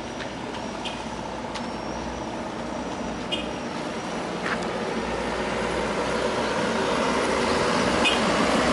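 A heavy truck or construction-machine diesel engine running steadily, growing gradually louder, with a few faint clicks and knocks.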